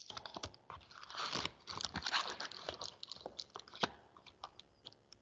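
Faint, irregular clicks and crackles close to the microphone, with brief rustling in between.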